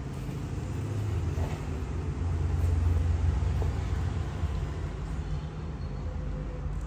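Low steady rumble, swelling a couple of seconds in and easing off again.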